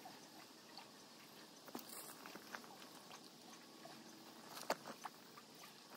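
Near silence, broken by a few faint clicks and ticks of fishing tackle being handled, the sharpest near the end.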